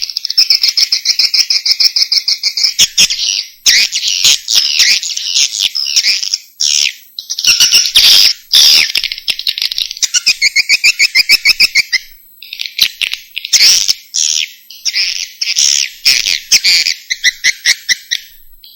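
Edible-nest swiftlets calling: rapid, chattering trills of buzzy chirps in bursts of a second or two, with short gaps between them. This is a swiftlet call recording of the kind used to lure swiftlets to a nesting house.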